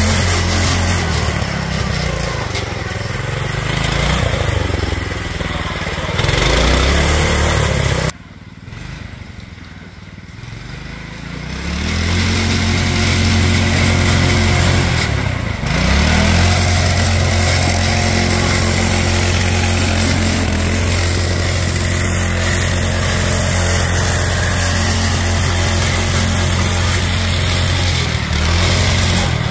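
Go-kart's small single-cylinder gas engine, governor removed and fitted with a rev-limiting ignition coil, running hard as the kart is driven off-road. Revs rise and fall for the first several seconds. The sound drops off suddenly about eight seconds in, then builds back to a steady high-revving run.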